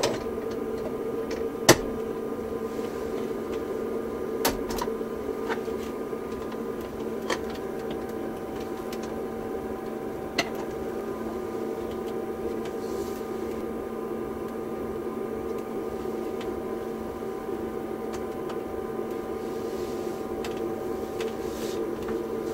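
Steady machine hum of small fans and electrical equipment, holding several constant tones, with a few sharp clicks from equipment being handled; the loudest click comes about two seconds in.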